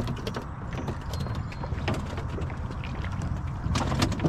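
Scattered clicks and knocks of gear being handled in a small fishing boat, over a steady low rumble.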